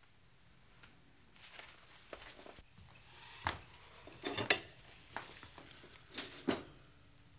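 Light knocks and clinks of small hard objects being handled, about half a dozen, the loudest a little past the middle, with soft rustling between them.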